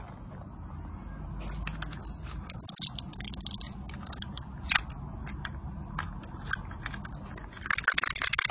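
A small cat toy clicking and rattling as cats bat it about on a tiled floor: scattered sharp clicks, one louder knock about halfway, and dense rattling near the end.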